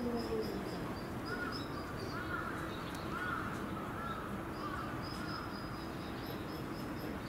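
A Chinese wolf's howl tails off with a falling pitch in the first half-second. It is followed by a run of about six short calls, roughly one every half-second, over faint high chirping.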